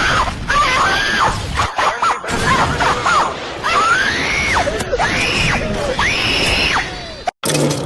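A creature's sound effects: a run of shrill screeches over a harsh, noisy bed, each rising and then falling in pitch, several in a row. The run cuts off abruptly near the end.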